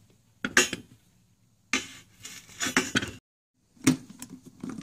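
Clinks, knocks and a short stretch of clattering as the CNC machine's X-axis carriage plate is handled and shifted on its threaded stainless lead screw.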